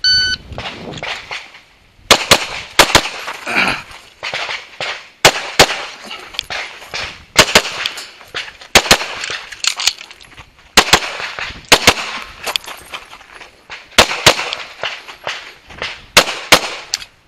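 A shot timer's start beep, then a red-dot-sighted competition pistol fired about twenty times, mostly in quick pairs, with short pauses between groups of shots.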